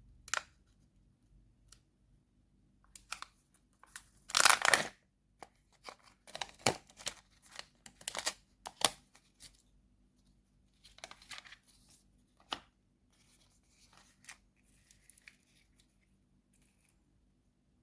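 Candy wrapper being torn open and crinkled in short bursts, the loudest tear about four seconds in.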